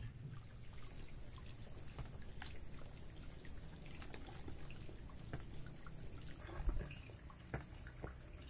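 Water running steadily from a garden hose into a plastic basin, with small splashes and knocks as tomatoes are washed in it by hand; one louder thump late on.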